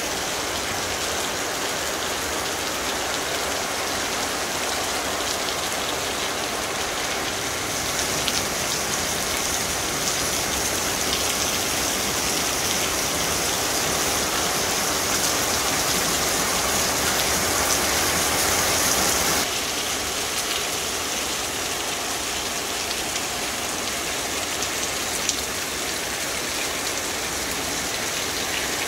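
Heavy rain pouring down and splashing on the ground, a steady hiss. It grows louder about a third of the way in and drops back suddenly about two-thirds of the way through.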